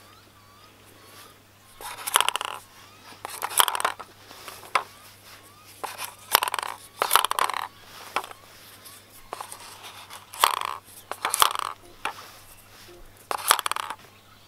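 Wooden parts of a homemade ping pong ball shotgun scraping and clattering as it is worked and loaded with balls: short bursts of half a second or less, often in pairs about a second apart.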